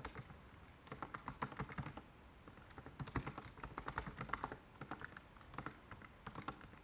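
Computer keyboard being typed on: faint, quick, irregular runs of key clicks with short pauses between them.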